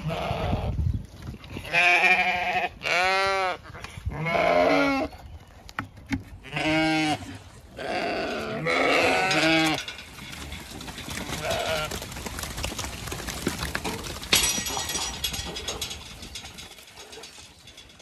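Zwartbles sheep bleating, about seven calls of different pitches from several animals in the first ten seconds. Then a shuffling noise, and a little after the middle a sudden rattling noise that lasts a few seconds.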